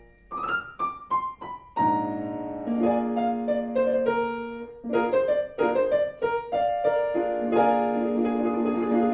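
Piano accompaniment music. A quick run of single notes steps downward about half a second in, then sustained chords and a melody follow.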